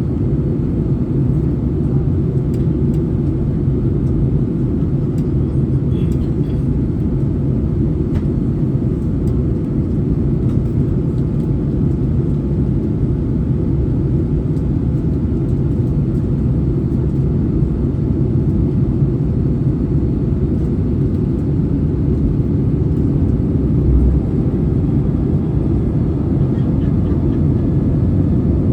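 Steady low drone of an Airbus A320's engines and rushing airflow, heard inside the passenger cabin during the descent.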